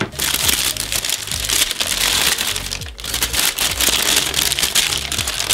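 Tissue paper crinkling and rustling steadily as a wrapped item is pulled out and unwrapped by hand, over soft background music.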